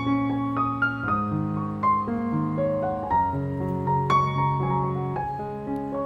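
Background piano music: a gentle melody of single struck notes over held lower notes.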